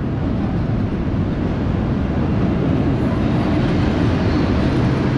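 Train moving on the tracks: a steady low rumble that grows slightly louder toward the end.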